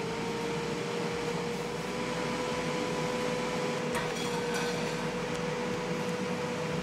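ULTREAN electric air fryer running, its fan whirring with a steady hum that holds one pitch; a light click about four seconds in.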